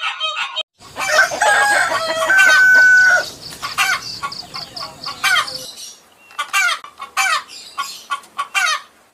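Chickens calling. A rooster crows, its long held note the loudest part about two to three seconds in, over clucking. This is followed by a run of short, separate clucks and squawks.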